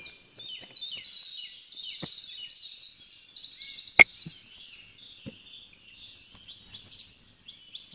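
Small birds chirping and twittering continuously, with a few sharp clicks; the loudest click comes about four seconds in.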